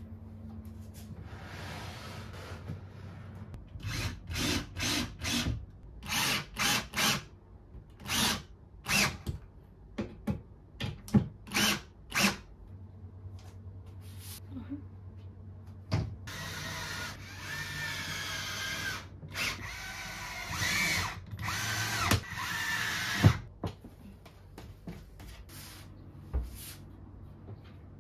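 Power drill running in a string of short bursts, then in a longer run of several seconds with its motor pitch rising and falling.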